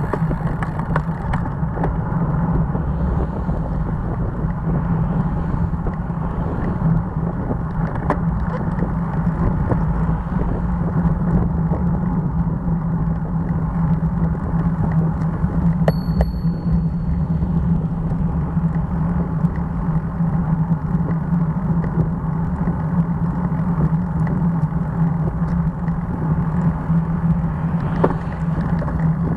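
Steady wind rush buffeting the microphone of a bike-mounted camera while riding a bicycle along a road, a continuous low rumbling noise. A brief high beep sounds about halfway through.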